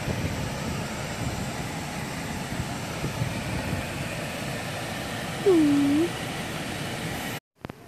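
Steady cabin noise inside a car. About five and a half seconds in a short voiced hum dips and rises in pitch, and the sound cuts off suddenly near the end.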